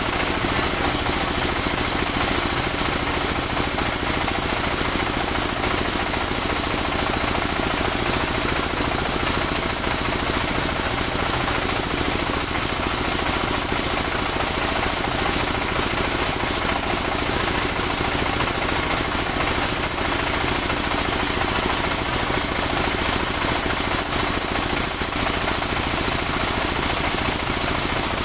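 Engine-driven log band saw running steadily while cutting a trembesi (rain tree) log: a fast, even engine beat under a high hiss from the blade and wheels.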